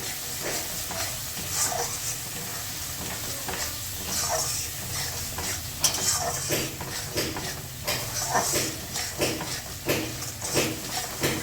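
Spice paste sizzling in hot oil in a pan while a spatula stirs it, scraping and knocking against the pan many times over: the masala being fried down (koshano) with turmeric, chilli powder, ginger and cumin paste.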